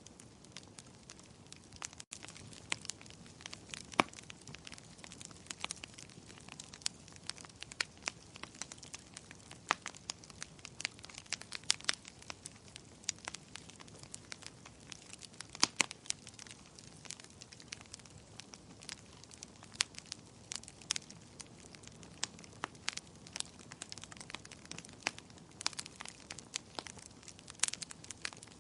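Wood fire burning in a fireplace, crackling steadily, with frequent irregular sharp pops and snaps over a soft low hiss.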